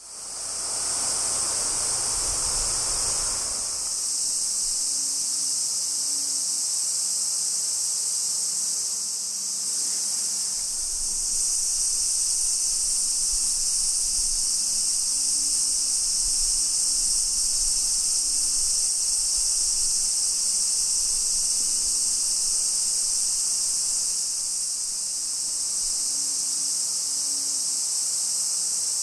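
Steady chorus of insects, a high-pitched unbroken drone, with a brief rush of lower noise in the first few seconds.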